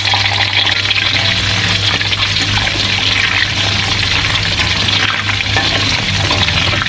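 Small round green eggplants frying in hot oil in an aluminium wok: a steady, loud sizzle, stirred with a metal spatula.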